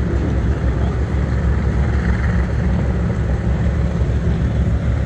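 A steady, fairly loud low engine drone that holds the same pitch throughout.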